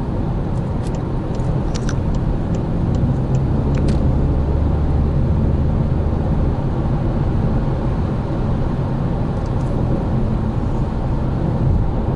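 Steady road and engine noise of a Volkswagen Passat GT with the 190 hp TDI diesel while driving. A low drone grows stronger from about four seconds in and eases after about six and a half, with a few faint light ticks early on.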